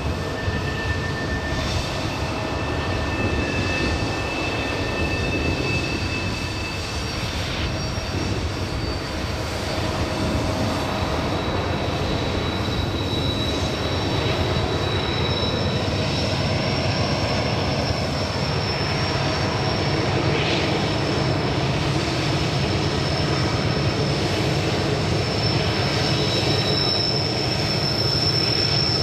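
Freight cars of a Union Pacific manifest train rolling on a curve: a steady rumble of wheels on rail, with thin, high wheel squeals coming and going at several pitches.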